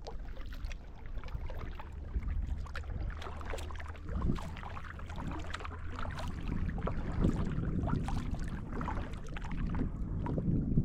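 Small water splashes and drips around a kayak, scattered irregularly, over a steady low rumble of wind on the microphone.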